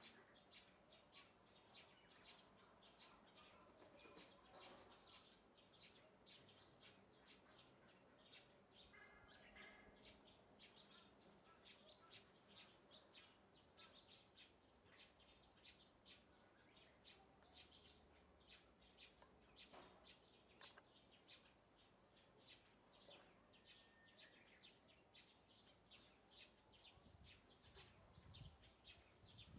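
Near silence with faint outdoor ambience and many faint, short, high chirps of small birds throughout.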